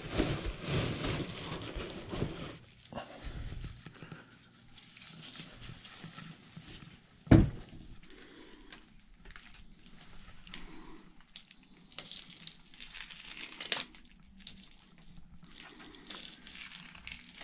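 Cardboard packaging being torn and plastic wrap crinkling as a long part is unpacked by hand, with scattered small clicks. One sharp knock, the loudest sound, comes about seven seconds in.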